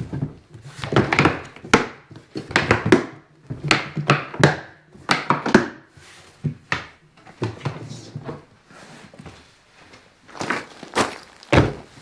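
Black hard plastic carry case being handled and its lid shut, giving an irregular run of thunks and sharp clicks.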